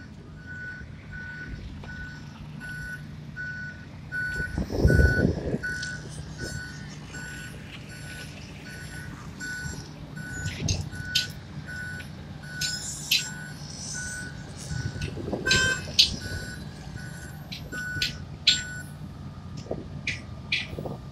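Wirtgen W 200 cold milling machine running, its diesel engine droning steadily while a backup alarm beeps in a regular series that stops near the end. A loud rumble comes about five seconds in, with scattered knocks and clicks throughout.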